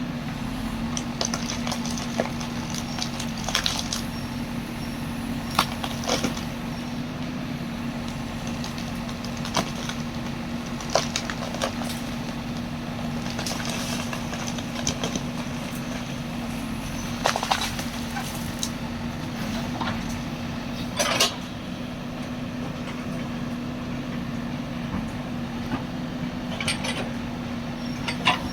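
JCB machine's engine running steadily under work, with sharp cracks now and then, like wood snapping or being crushed, as it cuts into trees.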